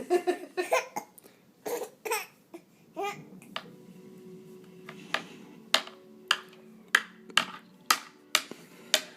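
Baby laughing in short bursts, her giggles caught by hiccups. After about three seconds this gives way to a run of sharp clicks, about two a second, over a low steady hum.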